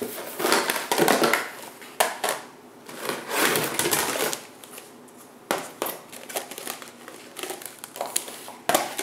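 Thin plastic food-storage containers handled and unpacked from a cardboard box: rustling, crinkling and clattering of plastic as stacks are lifted out and set down. The handling is heavier in the first half, then lighter taps and clicks follow, with a sharp click near the end.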